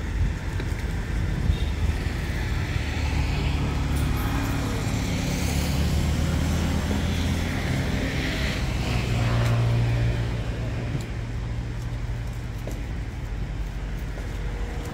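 A motor vehicle's engine going by close at hand over steady road noise, growing louder to a peak about nine to ten seconds in and then dropping away.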